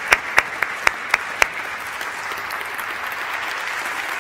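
Audience applauding, with about six louder, sharp claps from one person in the first second and a half.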